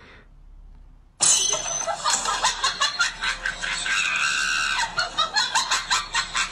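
A person laughing loudly in rapid bursts, starting suddenly about a second in.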